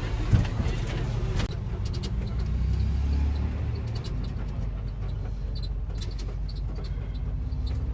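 Steady low rumble of a road vehicle heard from inside while riding, swelling briefly about three seconds in, with a few faint clicks.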